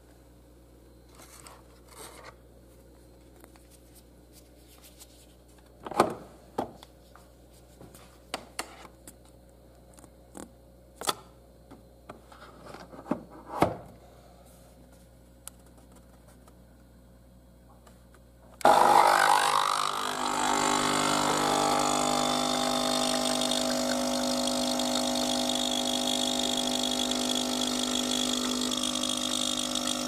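Clicks and knocks as a De'Longhi Nespresso capsule machine is handled and its brew button pressed; about two-thirds of the way through, its vibratory pump starts suddenly and runs steadily, a loud hum with several steady tones, as it brews an espresso.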